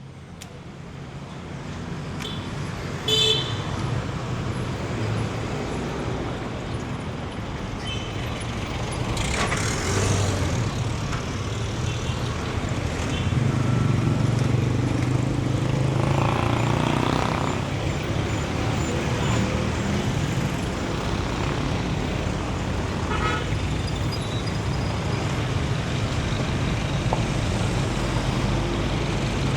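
City street traffic: vehicle engines running and passing, with a short horn toot a few seconds in and another near the end. The sound fades in over the first few seconds, and a vehicle swells louder about ten seconds in and again in the middle.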